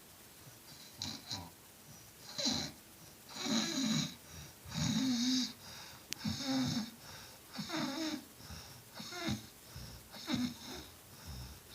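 Snoring: a run of short, uneven rasping breaths, about ten of them, each with a low pitched rattle, the longest about halfway through.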